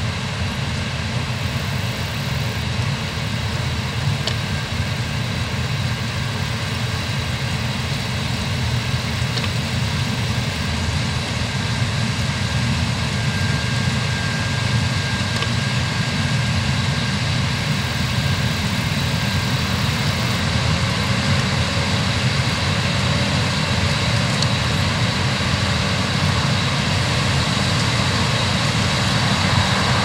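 Claas Lexion 7400 combine harvester running under load while harvesting barley: a steady drone with a faint high whine over it, growing slowly louder as the machine approaches.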